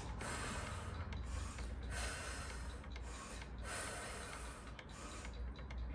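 A woman's hard exertion breathing through a set of overhead dumbbell presses: airy breaths in and out, about one every second or so, over a low steady hum.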